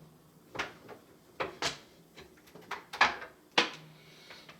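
Cable handling noise: a cable being wrapped several times around another cable, giving a string of about six sharp knocks and rustles, the loudest about three seconds in.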